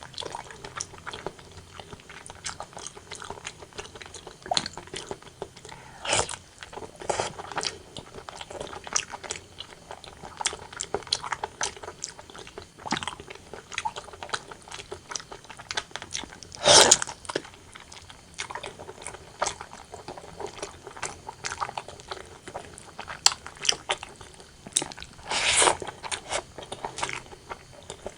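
Close-miked eating of braised pork belly and white rice: continuous chewing with many small wet clicks and smacks, and a few louder bites about 6, 17 and 25 seconds in.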